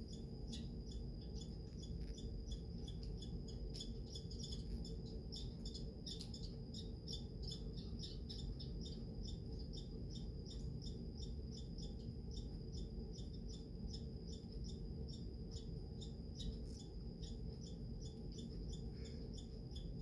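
Squirrel chattering: a long, unbroken run of sharp high-pitched calls at about four a second, the agitated chatter of a squirrel upset at another squirrel at its feeding spot.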